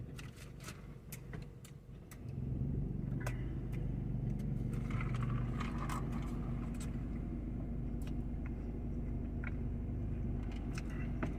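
Eating sounds, with small clicks and smacks of chewing food. About two seconds in, a steady low mechanical hum comes in and runs under them.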